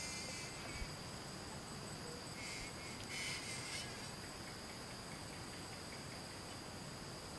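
A steady, high-pitched chorus of forest insects. It grows briefly louder twice around the middle.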